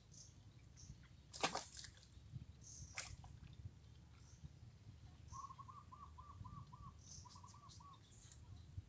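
Faint birdsong: a quick series of short repeated notes, about four a second, starting a little past halfway, pausing, then starting again, with thin high chirps throughout. Two short clicks sound in the first few seconds.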